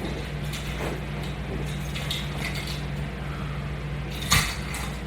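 Faint creaks, rustles and light clicks from resistance bands and gear being worked through crunches, over a steady low hum, with one sharper knock about four seconds in.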